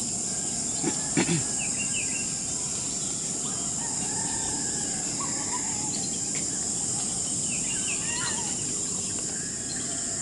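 Steady high-pitched drone of insects such as crickets, with a few faint bird chirps scattered through it and two short thuds about a second in.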